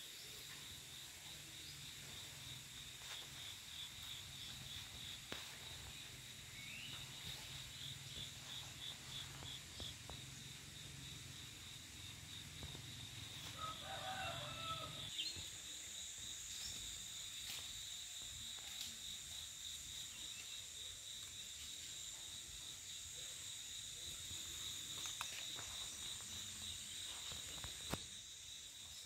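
Steady high-pitched trilling of an insect chorus, pulsing through the first ten seconds or so. A rooster crows once, faintly, about halfway through.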